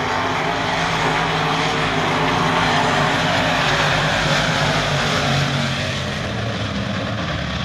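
A pack of dirt-track modified race cars' engines running hard at racing speed. The sound swells as cars pass close by a few seconds in, then eases as they move away.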